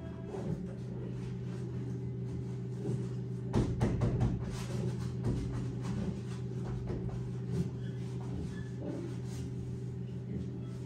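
Paint being rubbed and scraped onto a large wall-hung canvas, with a cluster of rough strokes about four seconds in, over a steady low drone of several held tones.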